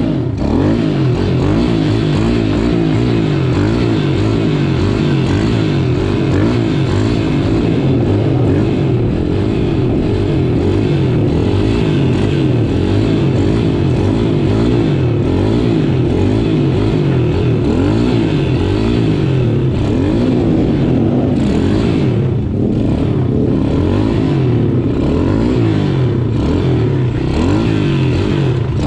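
Thumpstar 140 pit bike's single-cylinder four-stroke engine being ridden hard, its pitch rising and falling constantly with the throttle as the bike is held up in wheelies. It eases off briefly about two-thirds of the way through.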